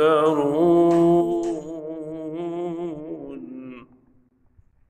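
Male Quran recitation in melodic tajweed style: one long held note, ornamented with wavering pitch, loudest at first, fading and breaking off about a second before the end.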